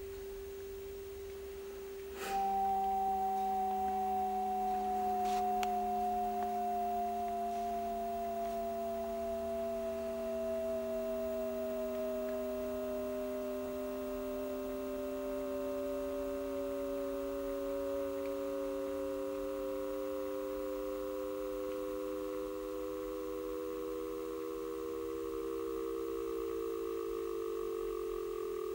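Electronic pure tones playing back from a cassette player. One steady tone holds throughout. After a click about two seconds in, a higher tone slowly falls and a lower tone slowly rises, and both merge with the steady tone by the end.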